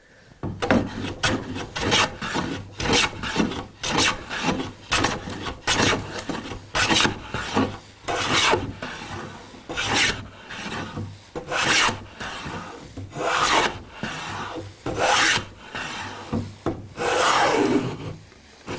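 Hand plane (No. 4 smoothing plane) shaving the edge of a pine board, working with the grain, in a run of strokes. The strokes are short and quick at first, then become longer, full-length passes.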